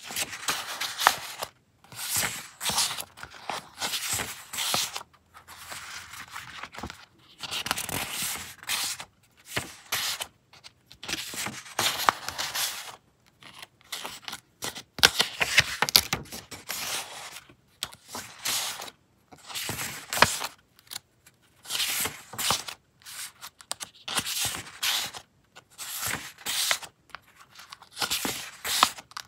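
Sheets of old printed paper (vintage magazine and book pages) rustling as they are handled, flipped and shuffled by hand, in bursts of a second or two with short pauses between.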